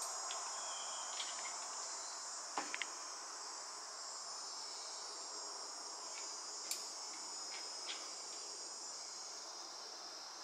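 Steady high-pitched chorus of insects, with a few brief sharp clicks, the loudest a quick pair about two and a half seconds in.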